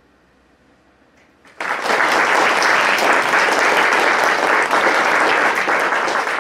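Quiet room tone, then an audience breaks into applause about a second and a half in, clapping steadily and densely.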